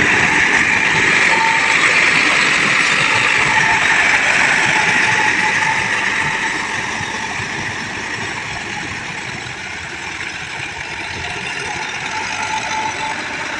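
Sonalika DI-750 III tractor engine running under load while its rotavator churns through a flooded, muddy field, puddling it for paddy, with a steady hiss of churned water. The sound grows fainter after about six seconds as the tractor moves away.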